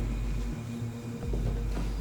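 Background music: a low, droning bass pulse that swells and stops about every second and a half, with a thin steady high tone above it.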